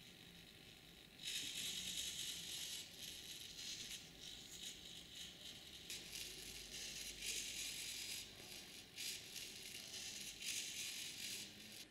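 Dentures set into a desk lamp's shade chattering, a fast dry rattle that starts about a second in and goes on in uneven spurts.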